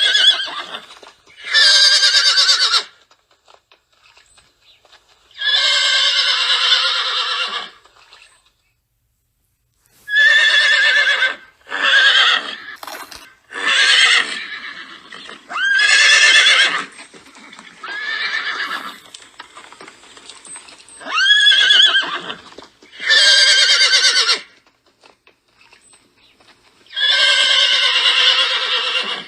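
A string of about ten horse whinnies and neighs, one after another with short pauses between them. Each is a high, wavering call lasting one to two seconds or so.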